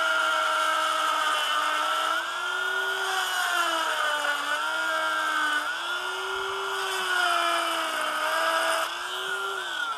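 Small cordless Dremel rotary tool with a grinding stone running at high speed against a plastic key fob housing. Its steady whine dips and wavers in pitch as it bears on the plastic while grinding toward the transponder chip. It winds down at the very end.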